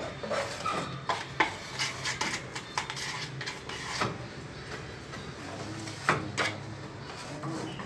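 Metal putty knife scraping and tapping in irregular clicks and short scrapes as putty is spread along gypsum-board ceiling seams and scooped from a cup.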